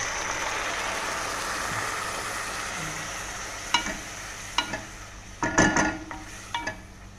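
Boiled mung beans poured into a pan of hot oil with sautéed garlic, onion and ginger, setting off a loud sizzle that slowly dies away over a few seconds. Then a wooden spatula stirring in the metal pan, with a few sharp knocks and clacks.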